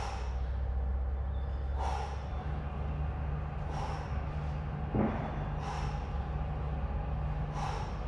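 A man's sharp breaths out through the mouth, five of them about two seconds apart, one at the top of each rep of a kneeling dumbbell shoulder press. A steady low hum runs underneath, with a single soft knock about five seconds in.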